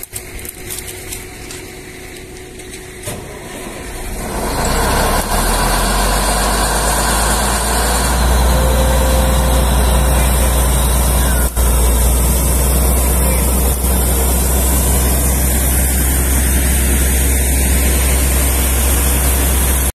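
A truck-mounted ELGi diesel air compressor starts up about four seconds in and then runs steadily with a deep, heavy sound, growing louder about eight seconds in. It is being brought up to supply air for the down-the-hole drilling hammer.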